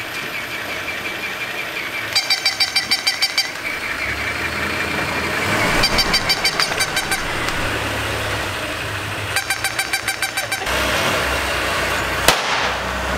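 Battery-operated walking toy dog: its small motor whirring, broken three times by about a second of rapid, high, electronic yapping. Near the end a car engine runs low, with one sharp click.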